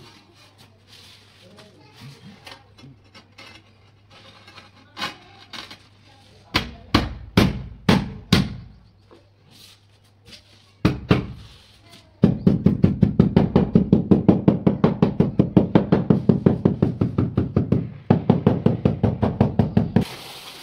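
Hammer tapping a 2×2 ceramic floor tile down into its mortar bed to seat it: a handful of loud separate knocks, then a long run of quick, even taps, about five a second, with a brief pause near the end.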